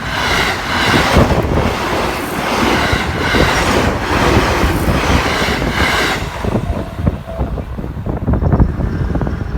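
Seibu 10000-series limited-express train set 10112F passing close by over a level crossing: loud rumble and clatter of wheels on rail, pulsing about once a second as each car's bogies go by. The sound thins out after about six seconds as the last car passes.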